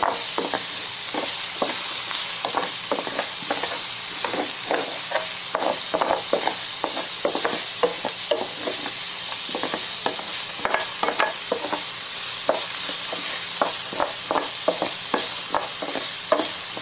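Chopped onions sizzling in oil in a ridged grill pan, stirred with a wooden spoon that scrapes and knocks against the pan many times over the steady hiss of the frying.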